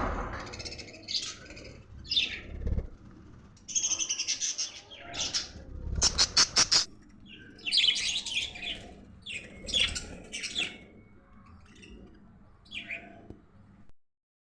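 Budgerigars chirping and chattering in irregular bursts of short high notes and quick trills, thinning out to a few faint calls near the end.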